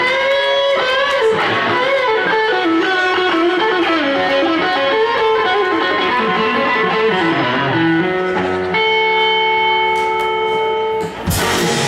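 Live blues band with electric guitar, bass and drums playing the closing bars of a slow blues. The electric guitar plays a downward run of notes, then a final chord is held and rings for a couple of seconds, with a last full-band hit near the end.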